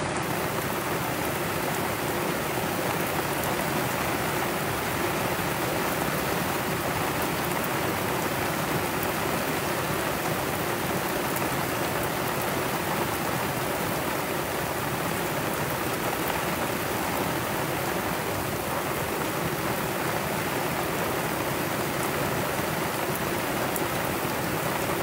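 Heavy rain pouring down steadily on a sailboat and the sea around it, a dense even hiss.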